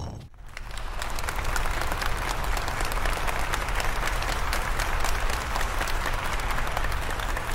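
Crowd applauding: dense, even clapping that swells in after a brief hush and then holds steady.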